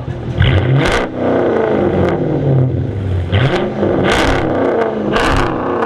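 Chrysler 300C's 5.7 Hemi V8 being revved several times, its pitch rising and falling with each blip of the throttle.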